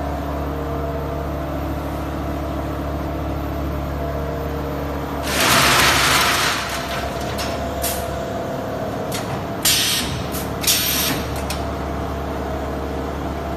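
Automatic jigsaw-puzzle bagging machine running with a steady hum. About five seconds in comes a loud hiss of compressed air lasting over a second, then several shorter hisses as its pneumatic cylinders work.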